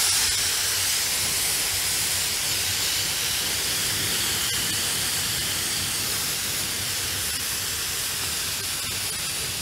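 Compressed air hissing out of a Kraftdekker KD-50L air compressor: a loud, steady hiss that starts suddenly and fades slightly as it goes on.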